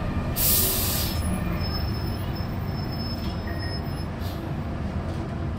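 M31 tram running, heard from inside the car: a steady low rumble of motors and wheels on the rails. A short loud hiss comes about half a second in.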